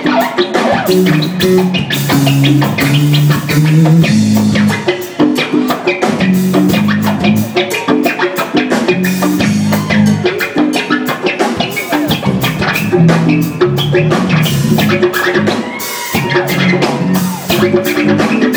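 Live rock band playing loudly: electric guitar lines over bass guitar and a drum kit with steady cymbal hits.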